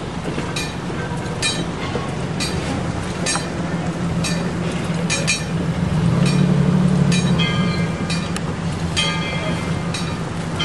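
Wig-wag crossing signal's bell striking at a steady beat of about one a second, over the low rumble of a passing train. The rumble swells around the middle, and a ringing metallic tone is heard about three quarters of the way through.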